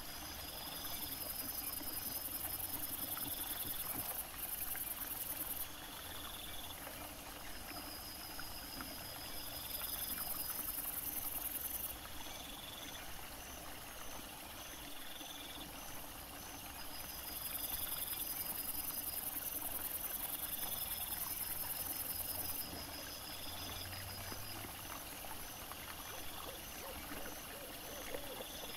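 Night insects calling: regular trains of rapid shrill pulses, with a very high buzz that comes and goes in spells of a few seconds. Under them runs the faint trickle of a small stream.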